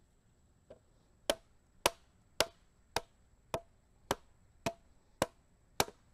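Hammer driving a raised-garden-bed stacking stake into the ground: a light tap, then nine sharp, evenly paced blows about two a second.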